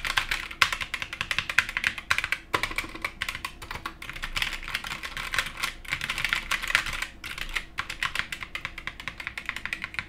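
HK Gaming GK61 60% mechanical keyboard with Gateron optical switches and double-shot ABS keycaps being typed on fast and continuously, a quick stream of key clicks with a few brief pauses, as a typing sound test.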